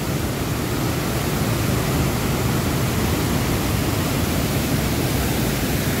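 Pha Ba waterfall in flood, a steady rush of muddy red runoff from rain pouring over the falls.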